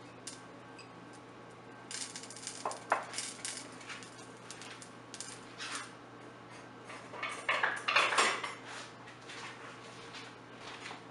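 Dishes and utensils clinking and knocking in several short clusters, the loudest about eight seconds in, as glass prep bowls and spoons are handled and set down on the kitchen counter.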